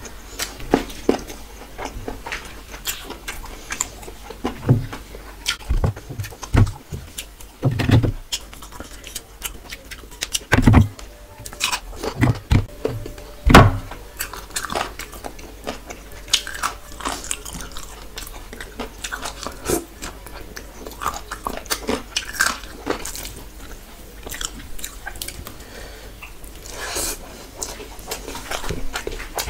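Close-up mouth sounds of a person eating rice and curry by hand: wet chewing, lip smacks and small clicks, with a few louder knocks near the middle.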